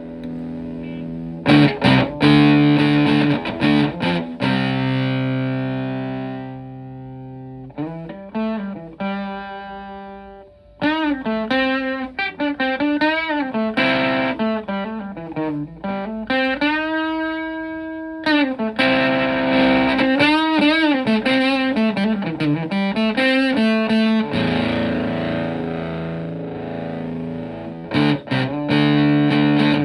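Les Paul electric guitar played through a modified Vox Tone Bender fuzz pedal into a Fender Twin–style amp. Fuzzed chords are struck and left to ring and fade, then a single-note lead with string bends and vibrato comes in about eight seconds in, and chords return near the end.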